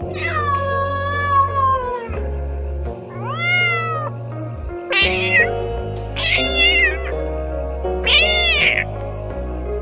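Domestic cat meowing five times over background music. The first meow is long and falls in pitch, and the later ones are shorter calls that rise and then fall.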